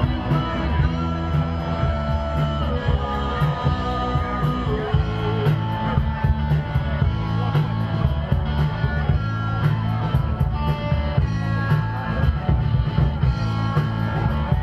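Live rock band playing amplified electric guitars and drums, with a steady beat.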